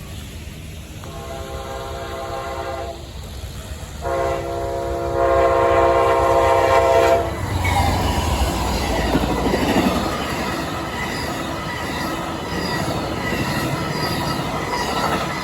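Amtrak P42DC passenger locomotive sounding its horn twice, a shorter blast and then a longer, louder one, as the Lake Shore Limited approaches. The train then rushes past with a low rumble and wheels clattering over the rail joints.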